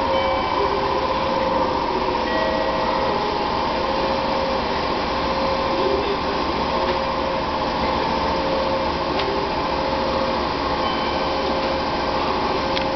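485-series electric train standing at the platform with its onboard equipment running, a steady whir without change.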